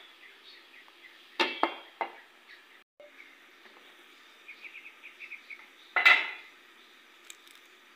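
Metal cookware clanking: a few quick knocks about a second and a half in, then one louder clatter near six seconds, as a utensil or lid strikes the cooking pan.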